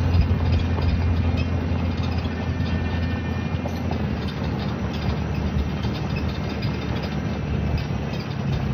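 Vehicle engine running steadily with a low, even drone; its pitch shifts slightly about four seconds in.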